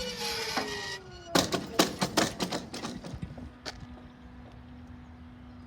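A train passing over the level crossing: rail noise with a falling whine that dies away about a second in, then a run of sharp clicks and knocks, and a steady low hum through the rest.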